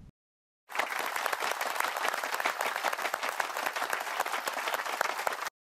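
Crowd applauding, starting about half a second in and cutting off suddenly near the end: a recorded applause clip.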